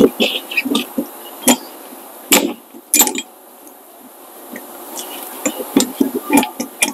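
Metal clinks and knocks of a brake caliper piston wind-back tool being fitted and turned against a rear caliper piston to screw it back in. Irregular sharp clicks, the loudest about two and a half and three seconds in, and a quick run of them near the end.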